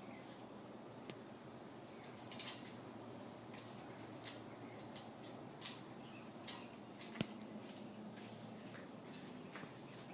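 About ten short, sharp clicks and taps at irregular intervals over a faint steady hiss, the loudest about six and a half seconds in.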